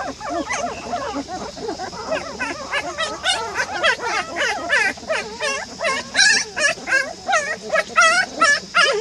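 A litter of young puppies crying together: many short, high whines and yelps that overlap, several a second, without a break.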